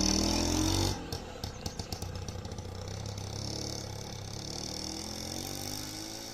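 A small vehicle engine starts up loud for about the first second. It then runs more quietly and steadily, its pitch slowly rising.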